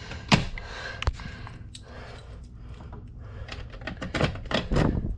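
Scattered sharp clicks and knocks: a strong knock about a second in, and a quick run of them near the end.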